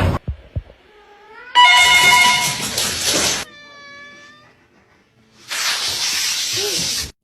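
A domestic cat meowing and yowling. A faint rising call is followed about a second and a half in by a loud, harsh yowl, then a quieter drawn-out meow, and near the end a long hissing noise.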